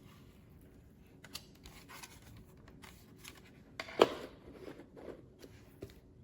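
Small handling sounds: scattered light clicks and rustles, with one sharp knock about four seconds in.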